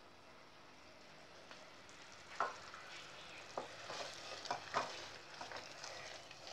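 Sugar syrup simmering in a pan with a faint hiss, and a spoon knocking lightly against the pan several times from about two seconds in as the syrup is stirred.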